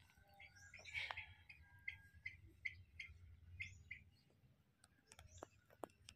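Faint outdoor ambience with a small bird chirping in short, quickly repeated notes and a few brief high falling whistles.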